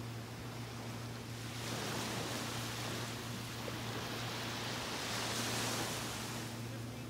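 Small waves washing onto a sandy beach: a hiss of surf that swells about two seconds in and dies away near the end, over a steady low hum.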